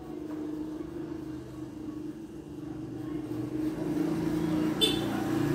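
Low, steady engine hum of a motor vehicle that grows louder over the second half, with a single sharp click near the end.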